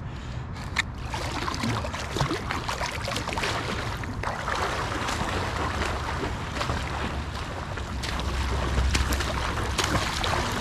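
Pool water splashing and sloshing as a swimmer pushes off and swims front crawl, with many small splashes from the strokes.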